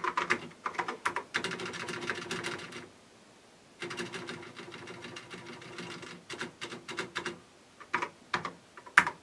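Typing on a freshly reassembled TRS-80 Model 4 keyboard: quick runs of key clicks, a short pause about three seconds in, then more scattered keystrokes.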